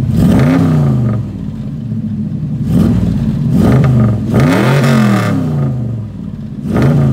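1977 Chevrolet C10's small-block V8 blipped about five times from idle through new headers and Flowmaster Hushpower HP-2 mufflers. Each rev rises and falls back to idle, and the biggest and longest comes about five seconds in. The exhaust has a crackle to it.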